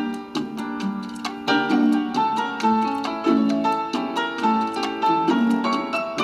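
Background music: light, bouncy plucked-string notes, several a second.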